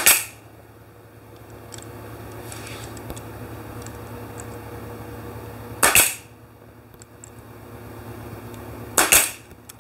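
Pneumatic Bostitch narrow crown stapler firing three times, about six seconds and then three seconds apart, driving staples through wooden trim into the table edge. Each shot is a sharp crack.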